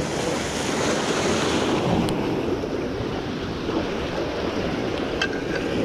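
Surf washing against the jetty rocks, with wind buffeting the microphone; a sharp click about two seconds in.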